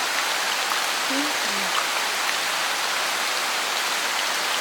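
Steady rain-like hiss of falling water. About a second in there is a faint pair of short, low falling notes.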